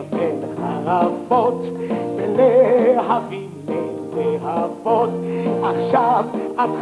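A song from a stage musical: a singing voice with a wavering vibrato over an instrumental band accompaniment.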